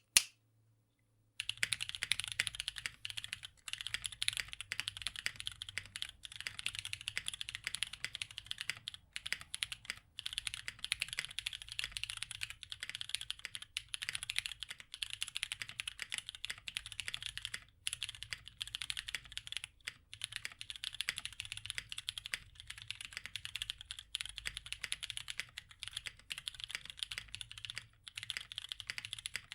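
Steady fast typing on a Portal65 custom mechanical keyboard with lubed, filmed Corsa light tactile switches on an FR4 plate and GMK keycaps, with some case hollowness the owner still notes. One sharp click at the very start, then the typing begins about a second and a half in and runs with a few brief pauses.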